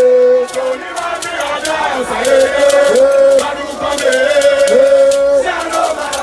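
Men chanting loudly together in long held notes, several phrases swooping up into each note, with crowd noise behind.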